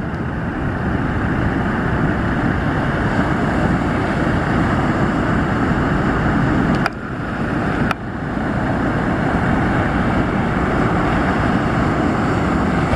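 Steady roar of surf and wind on the microphone, mixed with the twin Yamaha four-stroke outboard motors of a ski boat under full power heading out through the surf. The sound briefly cuts out twice near the middle.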